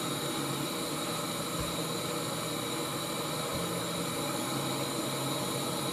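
Canister gas backpacking stove burning under a titanium pot of water, its burner giving a steady, even hiss.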